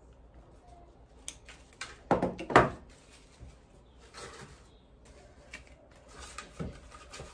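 Wire cutters snipping a silk flower's wire stem and being set down on a wooden table: a couple of sharp clicks, then the loudest pair of clacks about two and a half seconds in. Afterwards, light rustling as the silk flower stems are handled and tucked in.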